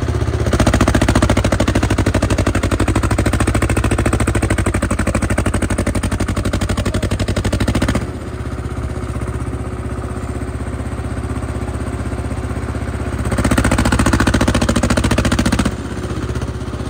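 Mini tractor's diesel engine running hard under load as it climbs, with a fast, even beat of firing strokes. It is louder in the first half, drops about eight seconds in, and swells again briefly near the end.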